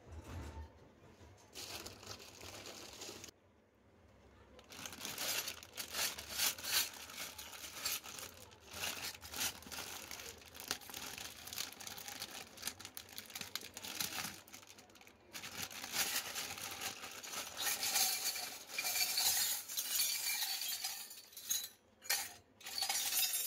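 Clear plastic wrapping crinkling and rustling as it is pulled off a miniature metal toy kitchen set, with a few light metal clinks from the small pots and utensils. It is sparse for the first few seconds and then nearly continuous.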